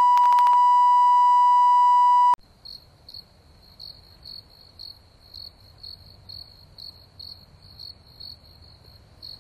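Loud steady colour-bars test tone, held for a little over two seconds and then cut off abruptly. After it, crickets chirp quietly, a short high chirp about two or three times a second.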